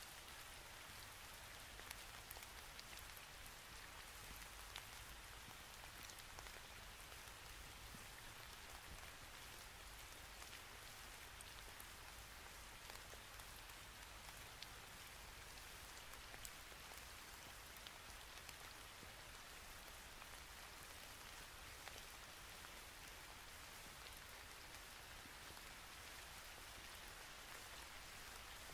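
Near silence: a faint steady hiss with scattered soft crackles of origami paper being folded and creased by hand.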